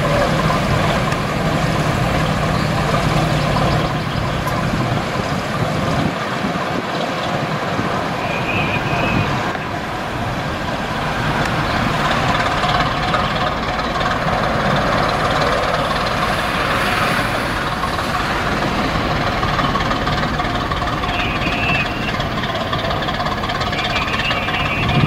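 Diesel engine of a DB class V 65 locomotive (V 65 001) running steadily as it works its train, a continuous engine drone with a low hum that is strongest in the first few seconds.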